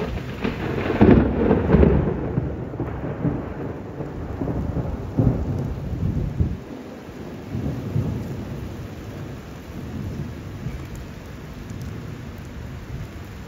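A thunderclap that builds about half a second in, is loudest between one and two seconds, then rolls on in further low rumbles that die away, over steady rain.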